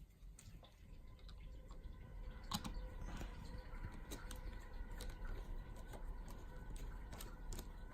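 Light scattered clicks and ticks of small parts being handled: the tiny screw of a plastic car key shell being picked up and turned in with a small screwdriver.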